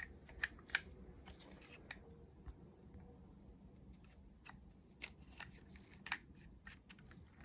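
Light clicks and taps of small steel tooling, such as end mills, being picked up and set down, a few at a time, over a low steady hum.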